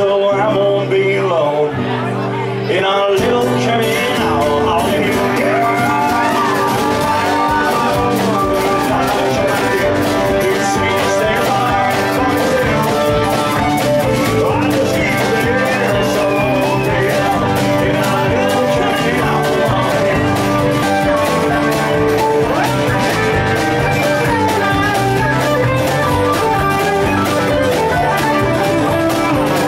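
Live blues rock band playing: guitars, bass and drums. It is quieter for the first couple of seconds, then the full band with drums comes in about three seconds in and plays on steadily.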